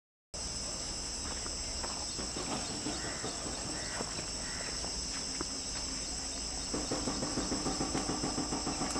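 Steady, high-pitched chirring chorus of insects. About two-thirds of the way through, a low rhythmic pulsing, a few beats a second, joins in underneath.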